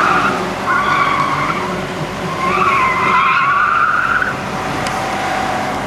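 Car tyres squealing three times as the car corners hard through an autocross cone course. The last squeal is about two seconds long and wavers in pitch. Underneath runs the steady sound of the engine pulling.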